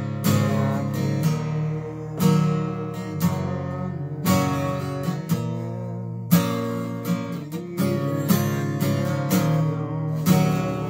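Acoustic guitar riffing, with accented strummed chords about once a second that ring on between strokes.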